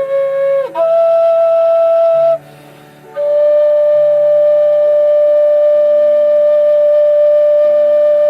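A D-key whistle playing a slow melody over a soft backing accompaniment: a few sustained notes, a brief break about two and a half seconds in, then one long held note from about three seconds in.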